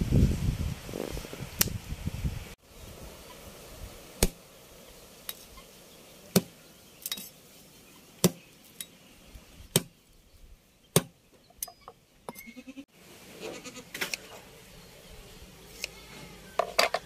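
Kitchen scissors snipping through a large river fish (vaalai meen): a series of sharp, separate clicks spaced about a second apart. It opens with a couple of seconds of low handling rumble.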